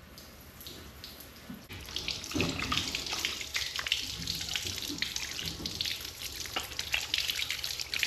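Water running from a tap into a sink, starting about two seconds in, and splashing over hands being washed.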